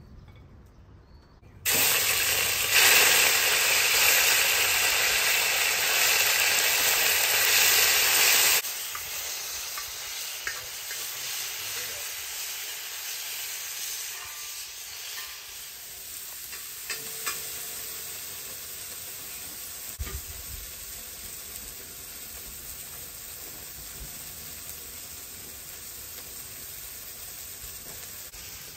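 Food sizzling as it fries in hot fat. A loud burst of sizzling starts suddenly about two seconds in, drops to a quieter, steady sizzle about nine seconds in, and a few light knocks come through it.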